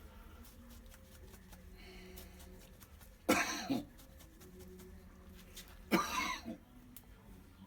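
A person coughing twice, once about three seconds in and again about six seconds in.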